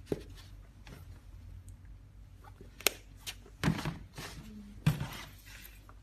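A canvas handbag with a metal clasp frame being handled: a few sharp clicks, the loudest about three seconds in, then two short bursts of dull thumps and rustling as the bag is moved.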